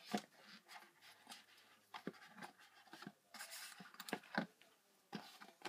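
Light handling noise from hands on a Tarot 680 Pro hexacopter's plastic canopy and frame: scattered soft clicks and taps, with a short stretch of rubbing about halfway through.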